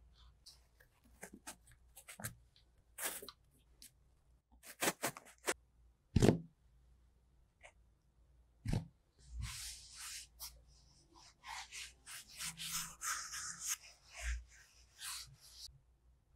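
Hands handling moulded kinetic sand: soft taps, crumbly rustles and rubbing as a sand band is fitted around the shape and sand discs are pressed in and lifted out. There is a dull thump about six seconds in and a longer stretch of scraping and rubbing in the second half.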